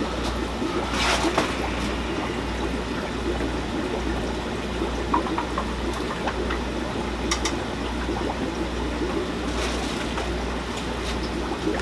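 Steady trickling and splashing of water over a constant low hum, with a few faint knocks.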